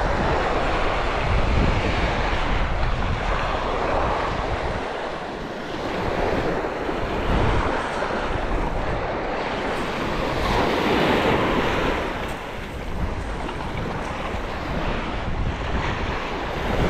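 Surf washing onto the beach, the noise swelling and ebbing with each wave every few seconds, with wind buffeting the microphone.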